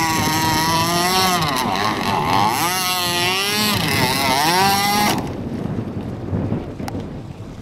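Radio-controlled jet boat's motor running hard, its pitch dropping and climbing again as the throttle is worked through turns, then cutting back suddenly about five seconds in, leaving wind and water noise.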